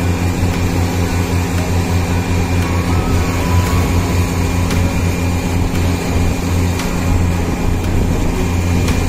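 Truck-mounted borewell drilling rig running steadily while drilling, a deep, even machine drone with a few faint ticks.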